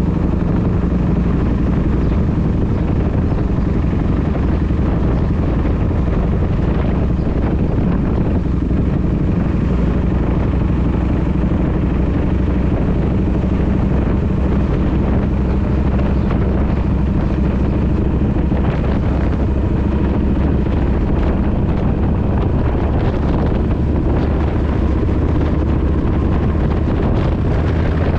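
Kawasaki VN1600 Mean Streak's V-twin engine running steadily under way, with wind rushing over the microphone.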